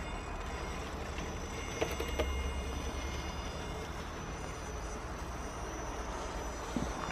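Traxxas TRX-4 radio-controlled crawler's electric motor and gears whining steadily as the truck crawls through deep snow, over a steady low rumble, with a couple of faint clicks about two seconds in.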